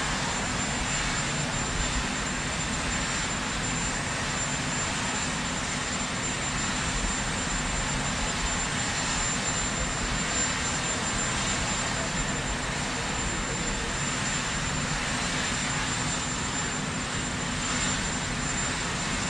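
Sikorsky VH-3D Sea King helicopter (Marine One) running on the ground, its twin turboshaft engines and turning rotor making a steady rush with a thin high whine on top.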